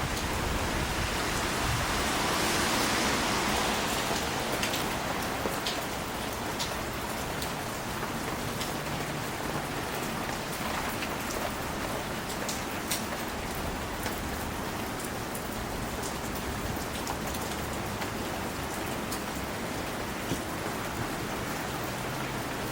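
Steady rain hissing, with scattered sharp drip hits of raindrops falling from leaves. The hiss swells a little louder about two to four seconds in.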